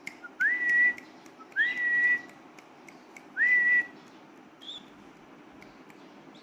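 Three whistled notes, each a quick rise that settles into a held tone about half a second long, followed later by two short, fainter, higher notes.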